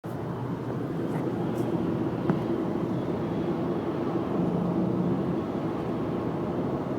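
Steady in-cabin drive noise of a 2008 Honda Accord at speed: road and engine drone with a steady low tone. There is a single short click about two seconds in.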